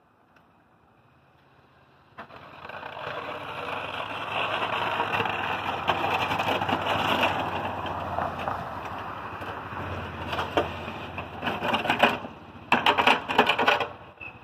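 ATV with a front plow blade running and scraping snow off a sidewalk, growing louder as it comes closer from about two seconds in, with a low engine hum under a harsh scraping noise. Near the end come several sharper crackling scrapes.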